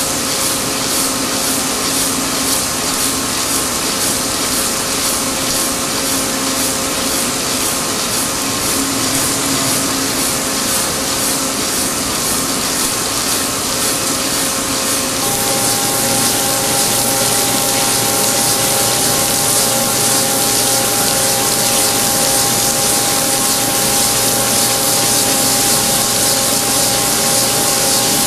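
Horizontal boring mill's integrated facing head turning and cutting a steel workpiece, a steady hiss of cutting and coolant with a regular pulsing and machine whine. A second, higher whine joins about halfway through and the sound grows a little louder.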